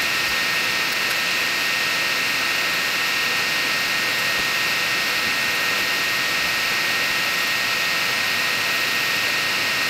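ORTUR Laser Master 3 laser head running its fan: a steady whirring hiss with a thin, constant high whine.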